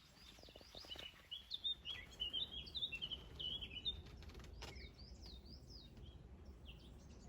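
A small songbird singing: a quick run of high chirping notes for a few seconds, then a few scattered notes, with faint handling clicks.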